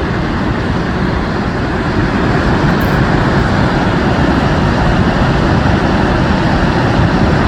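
Steady, loud rushing roar of the Rhine Falls, a large waterfall, heavy with low rumble.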